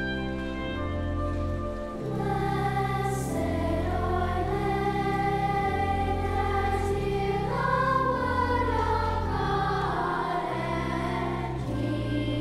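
Slow background music with sustained low notes, joined by a choir singing from about two seconds in.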